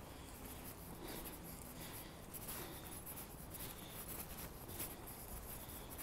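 Faint footsteps scuffing on a paved pavement at a walking pace, a soft regular scuffing over faint outdoor hiss.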